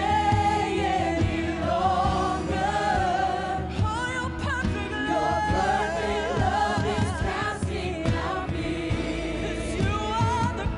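Gospel worship song: a woman sings the lead into a microphone in long, wavering held notes, with men singing backing vocals and instrumental accompaniment.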